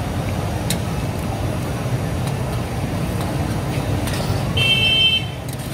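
A large karahi of mutton gravy boiling hard, stirred with a metal spatula, over a steady low rumble of road traffic. A vehicle horn toots briefly about four and a half seconds in, the loudest sound.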